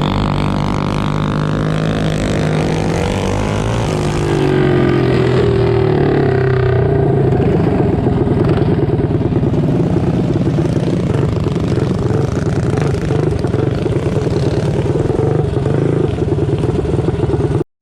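Several mini bikes' small single-cylinder engines running hard, revving up and down as they race. The sound cuts off abruptly near the end.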